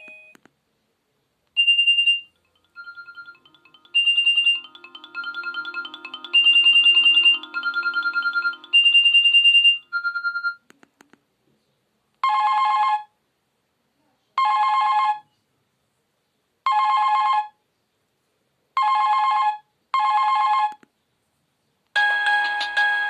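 Preloaded ringtones of an Alcatel 20.01X mobile phone playing one after another. First comes a short melody of bright beeping notes jumping between a high and a middle pitch over a soft lower part. Then one chord-like ring tone sounds five times in short bursts about two seconds apart, and near the end another, busier melody starts.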